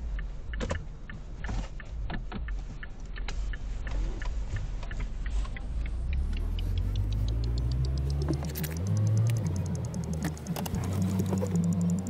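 A car's turn-signal indicator clicking at a steady pace while the car is stopped, then the engine note rising as the car pulls away, from about four seconds in. Music comes in over it near the end.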